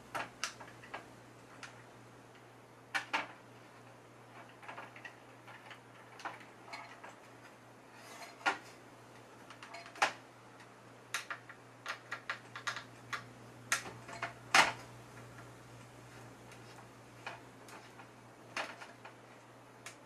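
Scattered, irregular clicks and taps of screws and a screwdriver against the IMSAI 8080's sheet-metal chassis and front panel as the screws are worked to catch in captured nuts, over a faint low hum. The loudest tap comes about three-quarters of the way through.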